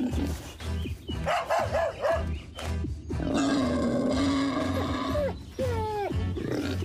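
Animal sound effects in a cartoon over background music with a steady beat: short pitched calls about a second in, then one long growl in the middle, then a few falling whines near the end.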